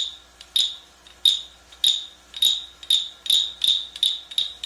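An imitation of a frog's call, 'cri-cri-cri', made as a series of sharp clicks, each with a short high ring. They come under two a second at first and speed up to nearly three a second.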